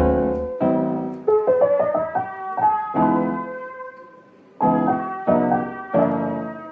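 Background piano music: a slow melody over chords, with a short pause about four seconds in before the notes resume.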